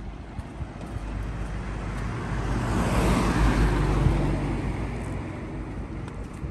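A car driving past on the street: its engine and tyre noise swells to a peak about halfway through, then fades away.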